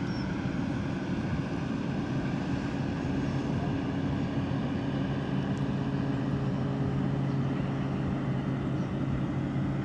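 Yamaha outboard motor running at a steady cruising speed, pushing a small boat loaded with five people, with an even, unchanging drone.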